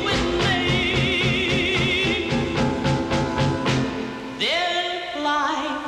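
A 1960 vocal-group R&B record: a lead voice and chorus singing with a wide vibrato over a repeating bass line. Near the end the voices slide up into new held notes.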